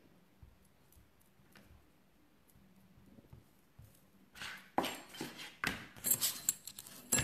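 Hands and a small modelling tool working a silicone mould on a cutting mat: faint handling ticks, then several sharp clicks and knocks from about four seconds in.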